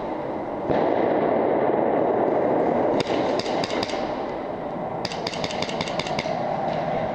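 Airsoft guns firing rapid sharp cracks: a short string about three seconds in and a longer one of about nine shots about five seconds in, over a steady rushing noise.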